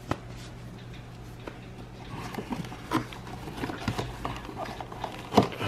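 A cardboard box handled with gloved hands: the flap opened and the part inside lifted out, giving scattered clicks, taps and light rustles, the sharpest knock shortly before the end. A steady low hum runs underneath.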